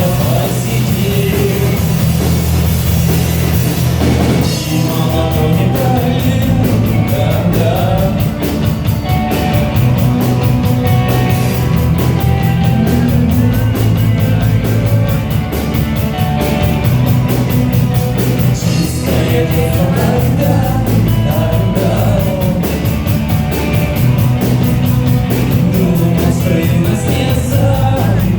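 Loud rock song with distorted guitars, a driving drum beat and singing.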